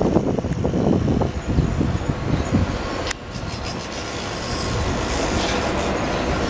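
Outdoor rumble of passing traffic. It is rough and uneven for about three seconds, then a sharp click, after which it is steadier and a little quieter.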